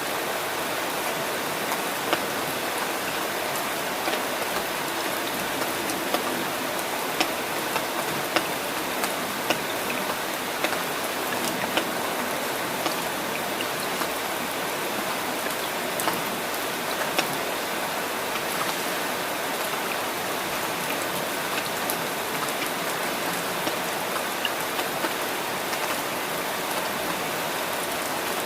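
Steady rain falling, with scattered louder drops striking close by as irregular sharp ticks.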